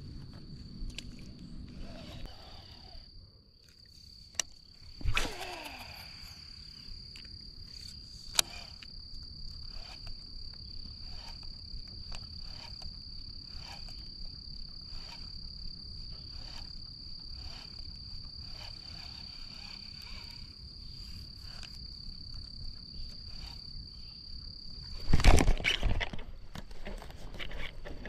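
A steady high-pitched insect drone, with regular soft ticks roughly every two-thirds of a second. Near the end there is a sudden loud burst of noise and the drone stops.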